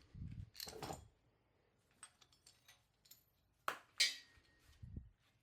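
Metal engine parts being handled on a work surface: scattered light knocks and clicks, then two sharp metallic clinks about four seconds in, the second ringing briefly, and a dull thump near the end.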